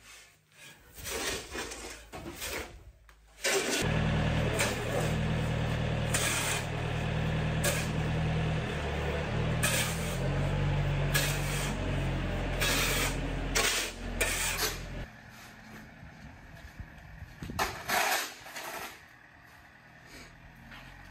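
Steel shovels scraping and scooping gravel on a barn floor, in short repeated strokes. A John Deere tractor engine runs under it, rising and falling in steps, from about four seconds in until it cuts off about fifteen seconds in, after which only the shovel scrapes are left.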